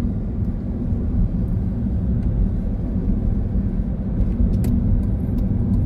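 Steady low rumble of a moving car's engine and tyres on a multi-lane road, heard from inside the car.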